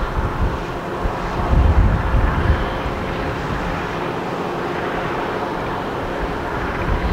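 Steady engine drone with a few faint held tones, with low gusts of wind buffeting the microphone about one and a half to two and a half seconds in.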